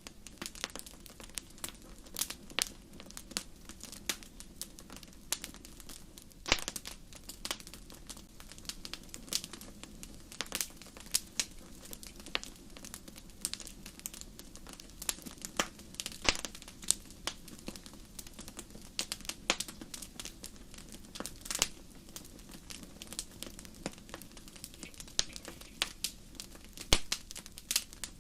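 Crackling wood fire: irregular pops and snaps of varying loudness over a low, steady rumble of burning.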